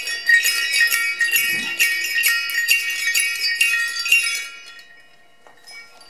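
A leather strap of antique brass sleigh bells being shaken, jingling for about four and a half seconds; then the shaking stops and the bells' ringing dies away.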